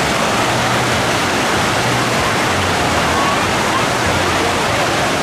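Steady rush of falling, splashing water, with faint voices of a crowd mixed in.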